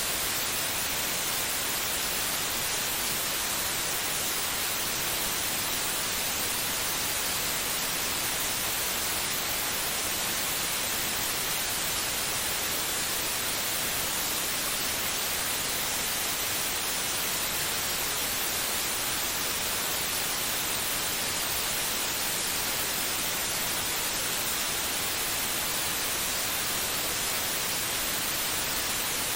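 Steady white noise: an even, unbroken hiss, brightest in the upper range, played to soothe a baby to sleep.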